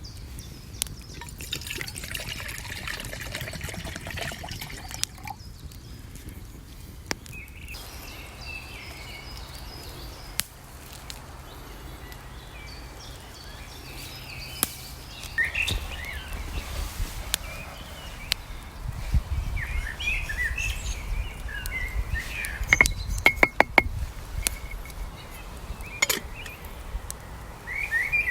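Water trickling and dripping, with birds chirping from about halfway through and a quick run of about six sharp clicks near the end.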